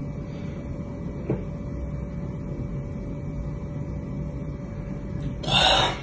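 A man drinking from a plastic bottle of electrolyte water, with a steady low rumble under it. He ends with one short, breathy exhale about five and a half seconds in.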